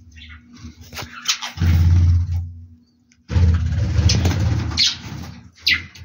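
Budgerigars giving short, harsh chirps and squawks, mixed with two bouts of loud, low rumbling noise that are the loudest sound.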